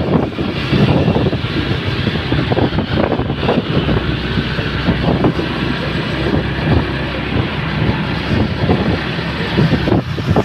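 Wind buffeting the microphone over the steady noise of vehicles moving on the road, the sound of riding along in traffic behind a tour bus.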